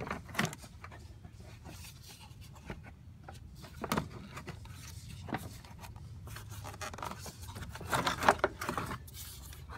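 Scattered knocks and scrapes of a black plastic grille insert being worked loose from a truck's front valance, with a louder cluster of plastic knocks and rattling near the end.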